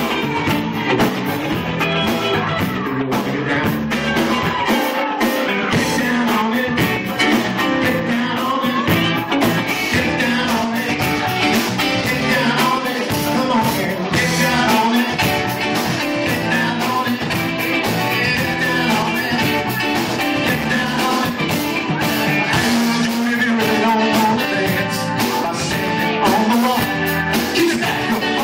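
Live band playing an amplified cover song: a male lead singer over drums, electric bass, electric guitar and keyboards, with a steady drum beat.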